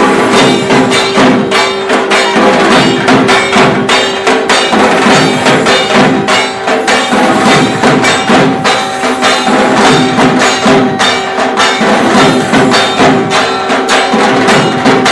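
Loud rhythmic percussion music: fast, clattering, bell-like strikes and drumming over a steady held tone.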